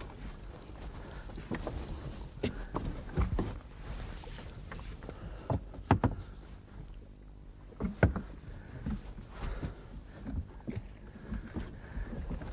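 Oars knocking in a heavy wooden rowing boat as it is rowed: irregular sharp knocks with each stroke, the loudest about halfway through and two-thirds of the way in, over a steady low hum.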